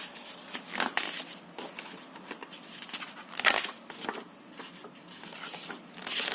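Paper rustling with light clicks and scrapes, as the pages of a picture book are handled and turned. The loudest rustle comes about three and a half seconds in.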